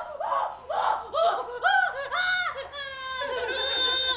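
A woman's voice in a fast run of short cries that rise and fall, about three a second, climbing in pitch. About three seconds in, they break into one long, high-pitched wail.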